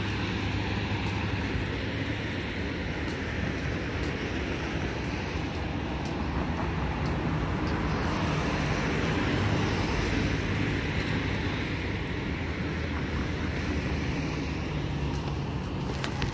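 Steady city road-traffic noise, an even rumble with a low hum that holds at one level.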